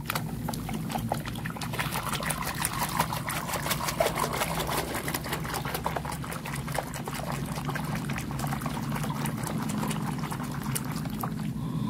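Water sloshing and splashing as a hand scrubs a toy airplane under water in a plastic basin of foamy soapy water, a dense, continuous run of small splashes.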